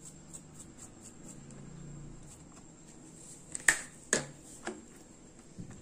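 Two sharp clicks about half a second apart, a little past the middle, then a couple of fainter ticks: a small container of asafoetida powder being handled and put away after a pinch is shaken into batter.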